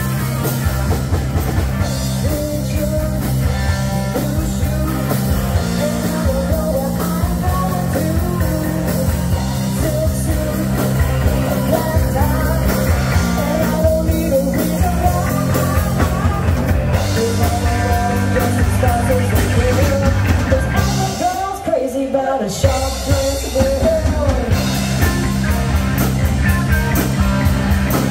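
Live rock band playing: electric guitar, bass guitar, drums and keyboard, with singing over the top. About three quarters of the way through, the bass and drums drop out for a second or so before the full band comes back in.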